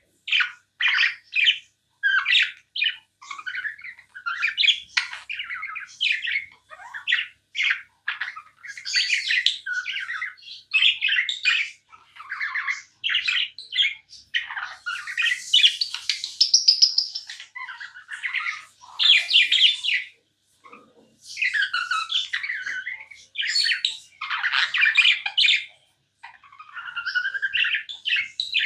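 Budgerigars chirping and chattering almost without a break, in quick overlapping chirps and squawks with a few short pauses.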